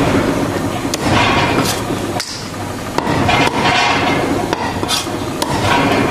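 Chinese cleaver chopping raw bullfrogs into pieces on a thick wooden chopping block: a string of irregular knocks, some close together and some a second or more apart.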